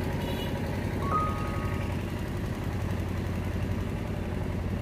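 Street traffic: a steady low engine rumble from passing or idling vehicles, with a faint, brief high tone about a second in.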